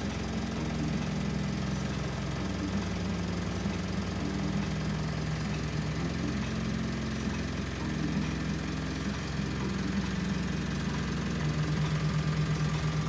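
Loud music played through an Alpine subwoofer inside a closed Mitsubishi Delica D5, heard from outside the van. Mostly muffled bass notes come through, changing pitch every second or so, with a fast pulsing bass passage near the end.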